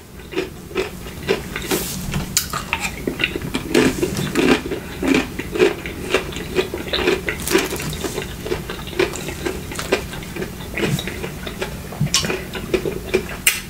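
A spoon stirring and scraping through a loaded burrito bowl of rice, beans, meat and salsa, with irregular clinks and wet squishing of the food.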